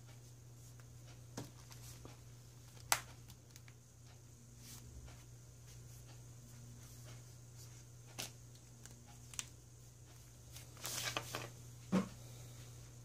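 Scattered clicks and taps of an iPad mini being handled on a workbench, with a cluster of small knocks near the end and a heavier knock as it is set down on the bench. A steady low hum sits under it.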